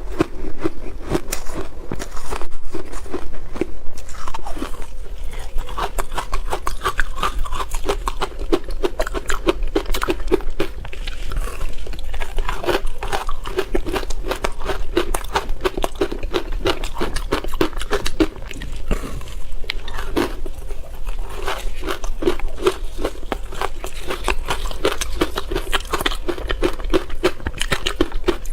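Ice being bitten and chewed close to the microphone: dense, rapid crunching that keeps up throughout.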